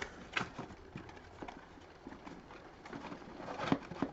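Scalextric set parts being handled while they are taken out of their box: a scatter of light knocks and clicks, a little louder near the end.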